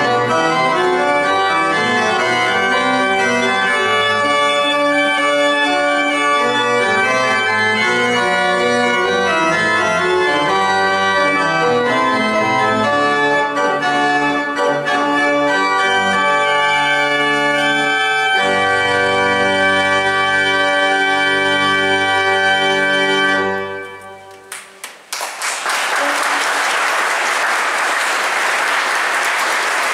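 Organ playing full sustained chords, with the final chord ending about three-quarters of the way through. An audience then breaks into applause that continues to the end.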